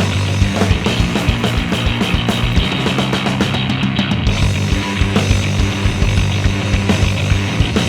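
Fuzz-distorted electric bass, a 1979 Music Man StingRay through a Wren and Cuff Russian Tall Font muff-style fuzz pedal into an Ampeg B15 Portaflex amp, playing a rock riff over drums.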